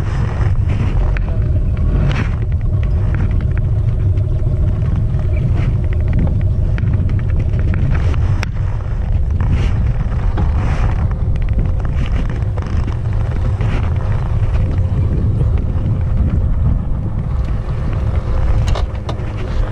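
Steady, loud low rumble with a faint steady hum over it and a few light clicks.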